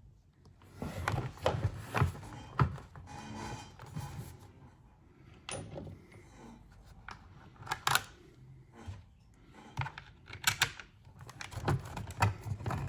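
Irregular clicks, taps and knocks of screws and small parts being handled and fitted by hand on a motorcycle's rear mudguard assembly.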